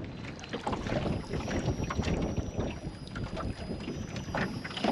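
Water slapping against the aluminium hull of a small boat, with wind on the microphone and scattered knocks and splashes as a crab trap line is hauled in by hand.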